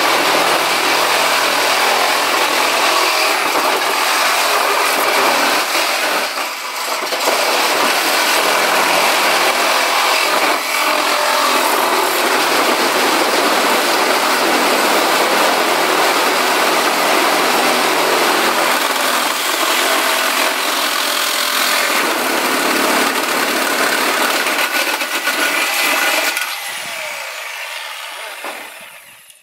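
Corded reciprocating saw cutting through a corrugated steel building door panel, a loud steady rasping buzz of the blade in sheet metal, briefly easing off once about six seconds in. Near the end the cut finishes and the saw winds down and stops.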